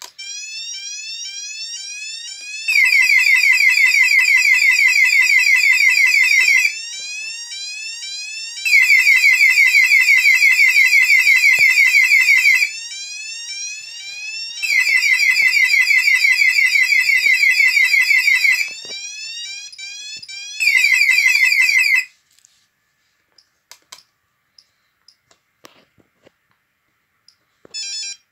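Intruder alarm sounder of an Orisec CP-10 alarm system going off with a fast, repeating rising electronic whoop. Stretches of about four seconds are much louder than the short stretches between them. It cuts off abruptly, followed by a few keypad button clicks and a short beep near the end.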